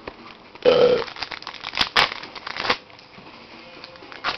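Trading cards and a card pack's wrapper being handled: quick crinkling, rustling and clicking as the cards are flipped through, busiest in the first three seconds and sparser after. A short vocal sound comes about a second in.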